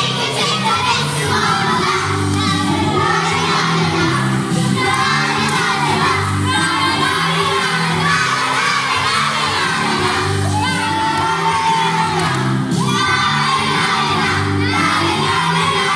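Loud music with a bass line, and a crowd of children shouting and singing over it.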